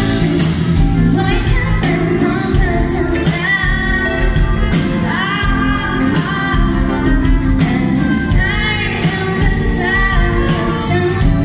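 A live band playing a slow pop song: a woman sings over strummed acoustic guitar, bass guitar and drums, with regular cymbal strikes, heard from among the crowd.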